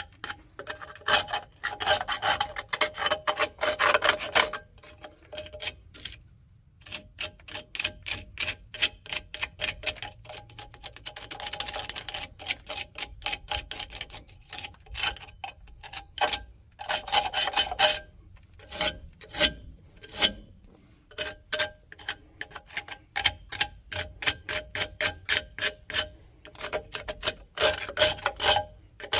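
A hand tool scraping old grime and rust off a metal part in quick back-and-forth strokes. The strokes come in bursts with short pauses, the longest gap about six seconds in.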